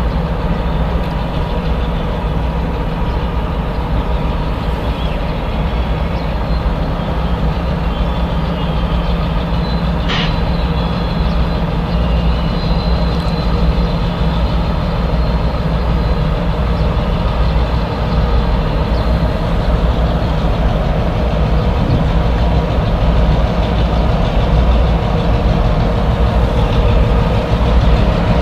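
Pair of EMD G22 diesel locomotives running slowly, a steady low engine rumble that grows slowly louder. A brief high squeal comes about ten seconds in, followed by a thin high tone lasting a few seconds.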